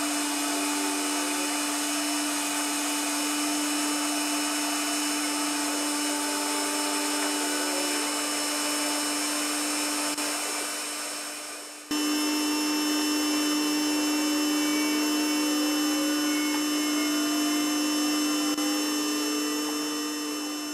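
Unimat CNC lathe turning a workpiece with a Dyson vacuum cleaner running over it for chip extraction. There is a steady hum and hiss, with short rising and falling whines from the axis stepper motors as the tool moves. The sound fades and jumps back about halfway through.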